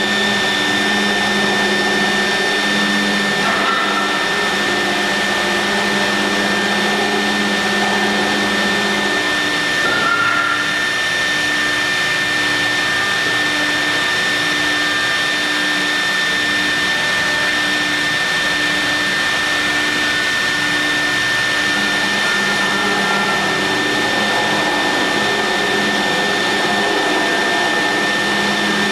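CNC router milling marble: the spindle runs with a steady high whine over a steady rushing noise, while a lower hum changes pitch every few seconds as the cut goes on.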